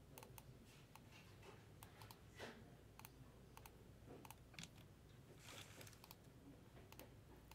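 Faint computer keyboard typing: scattered, irregular keystroke clicks.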